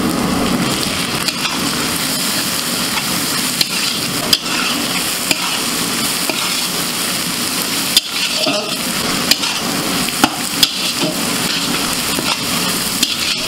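Onions and tomato pieces frying in oil in a metal kadai, sizzling steadily while a flat metal spatula stirs and scrapes the pan, with a few sharp clicks where it knocks against the pan.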